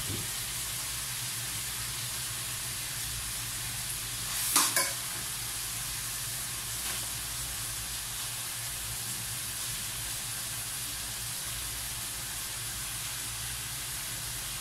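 Tomatoes, chilies and ginger sizzling in oil in a metal pan over a gas burner, a steady hiss with a spoon stirring now and then. A short louder clatter comes about four and a half seconds in.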